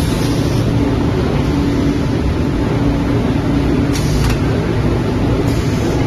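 Veneer mesh dryer line running with a steady, loud machinery drone and a faint recurring hum. Two brief hisses come about four and five and a half seconds in.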